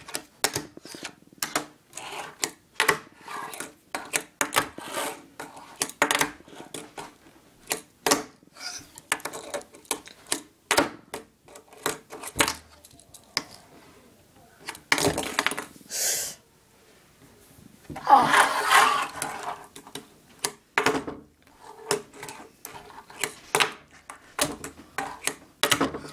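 Tech Deck fingerboard clicking and clacking on a wooden surface: the tail popping, the board flipping and landing, with wheel rattle. About 18 seconds in comes a longer, louder clatter lasting a second or two.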